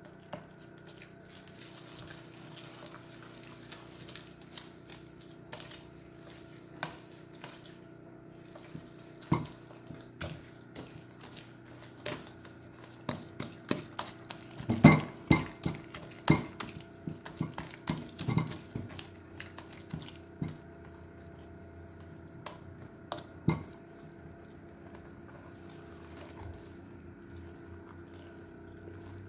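Wire whisk beating thick carrot cake batter in a stainless steel bowl. It makes irregular clinks and scrapes against the metal, coming thickest and loudest in the middle. A faint steady hum runs underneath.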